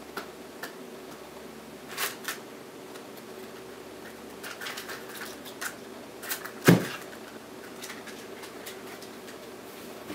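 Hands handling clear plastic packaging on a desk: scattered light clicks and crinkles, with one sharper knock about two-thirds of the way through. A faint steady hum runs underneath.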